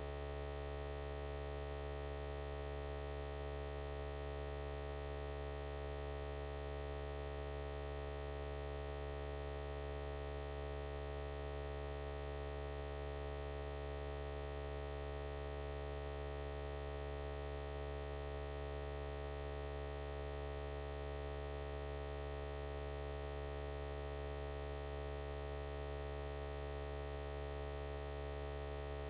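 A steady electrical hum: a low drone with a higher tone over it, unchanging in pitch and loudness.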